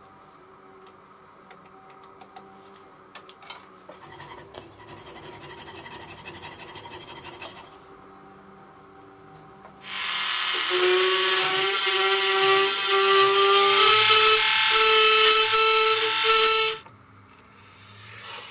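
An electric hand power tool runs in short bursts with a steady whine, its pitch stepping up about two-thirds of the way through. A quieter buzzing run comes earlier, about four seconds in.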